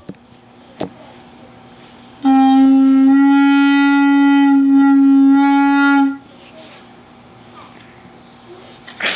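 O scale model steam locomotive's whistle sounding one long blast on a single steady note, starting about two seconds in and lasting about four seconds. A short click comes just before it, about a second in.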